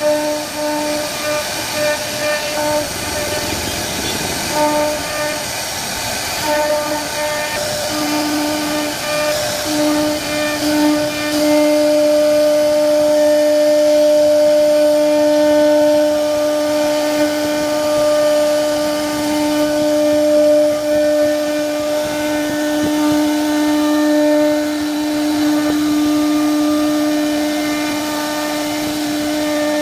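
CNC wood-carving machine's spindle whining as it carves wood. The whine cuts in and out for the first ten seconds or so, then holds one steady pitch.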